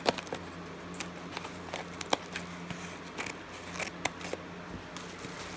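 Cardboard package being cut open with a blade: irregular sharp snips and scrapes as it goes through the tape and box.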